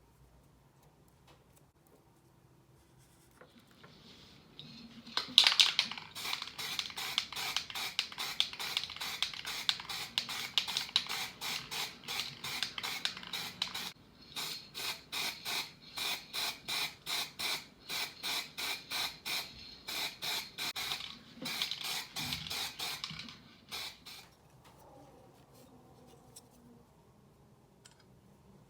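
Quick, even back-and-forth scraping strokes, several a second, starting about five seconds in, pausing briefly midway and stopping a few seconds before the end.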